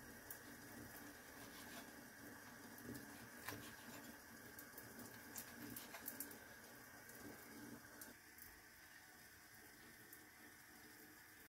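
Faint, scattered taps and clicks of a kitchen knife slicing through a smoked sausage onto a bamboo cutting board, over a steady low hum; the taps thin out after about eight seconds.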